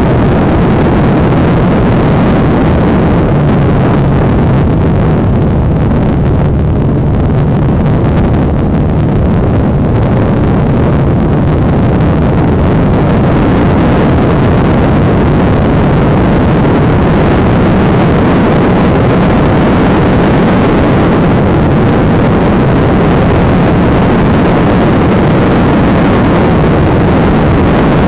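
Honda NX650 Dominator's 644 cc single-cylinder thumper engine running as the bike is ridden along at speed. The engine note softens briefly a few seconds in, then pulls steadily again.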